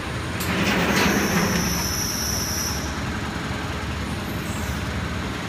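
Plastic vacuum forming machine running: a steady low machine hum, with a rush of air noise about half a second in and a high hiss lasting about two seconds.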